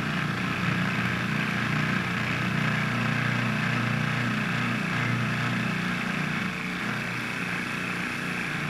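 Food processor motor running steadily, its blade churning a crumbly pasta dough that has not yet come together into a ball.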